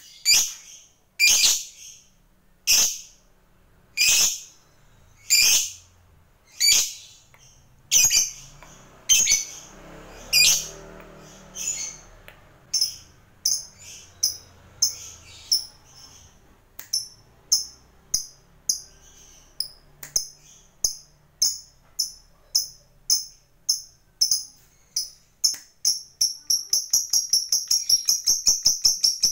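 A lovebird giving its long 'ngekek' call: sharp, shrill chirps, at first about one a second, that come steadily faster until near the end they run together into a rapid rattling trill.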